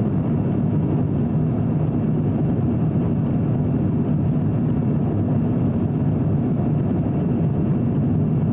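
Airbus A350-900 cabin noise in flight: a steady low rumble of its Rolls-Royce Trent XWB engines and airflow past the fuselage.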